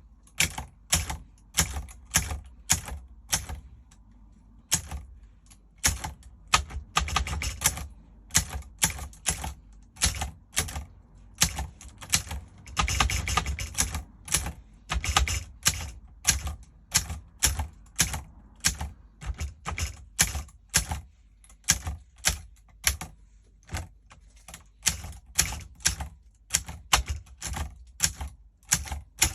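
Tippa S portable manual typewriter being typed on: sharp separate key strikes at about two to three a second, with a brief pause about four seconds in and a quicker run of strokes about halfway through.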